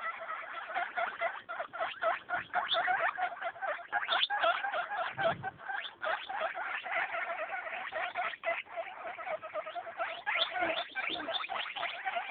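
Baby guinea pigs squeaking close up, a rapid, continuous string of short calls.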